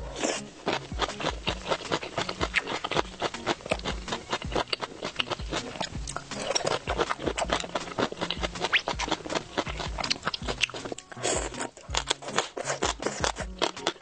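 Close-miked crunching and chewing of crisp vegetables from red-oil bobo chicken, a dense run of sharp crunches, very crunchy.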